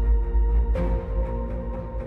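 Background music: sustained chord tones over a heavy bass, with a new chord struck about three-quarters of a second in.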